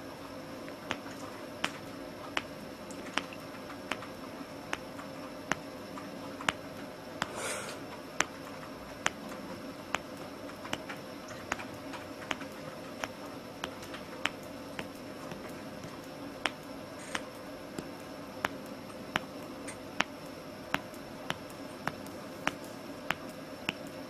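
Middle-finger knuckle joints being cracked over and over, one sharp pop after another, a little faster than one a second.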